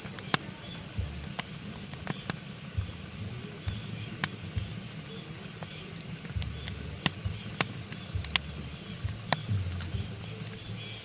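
Pine logs burning in a fireplace, crackling with sharp, irregular pops over a steady low rush and hiss of the flames.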